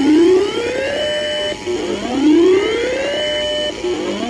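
Whooping siren-style alert tone: a pitch that sweeps up for about a second, holds for a moment, then starts again, about every two seconds. It is a station's attention sound that announces an Emergency Alert System warning.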